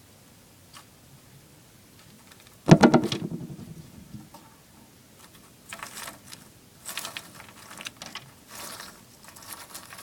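A sudden loud rattling clatter of quick clicks about three seconds in, dying away over a second or so, followed by scattered bouts of rustling and clattering as something is handled.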